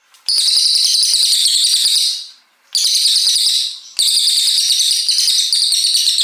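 Brown cililin songbird singing long, rapid high-pitched trilling phrases ('tembakan panjang'), three in a row with short breaks between them.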